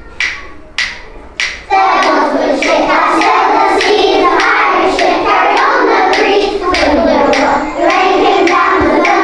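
A class of young children singing together in unison, with hand claps keeping a steady beat. A few claps come first, and the singing starts about two seconds in.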